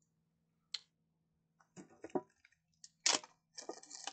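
Plastic shrink-wrap on a Yu-Gi-Oh card tin being torn and peeled off. A sharp click comes just under a second in, then crinkling rustles, a loud tear about three seconds in, and more crackling after it.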